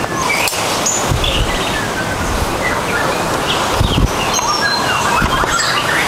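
Aviary birds chirping and calling in short high notes over a steady hiss, with a few dull low thumps.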